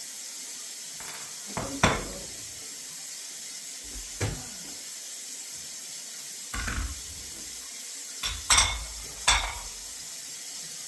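Dishes and cutlery clattering as they are handled and set down during kitchen cleanup: about five separate clinks and knocks, against a steady background hiss.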